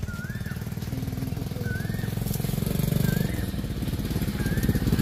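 A small engine running steadily, a low pulsing rumble, while a bird repeats a short rising-and-falling whistle about every second and a half.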